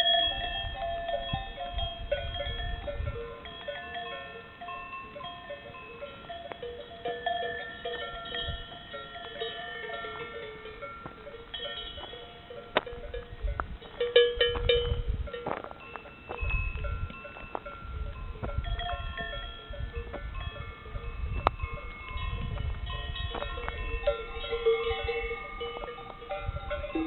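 Bells on a herd of cattle ringing irregularly as the animals move. Many overlapping tones at different pitches, gong-like, with a few low rumbles.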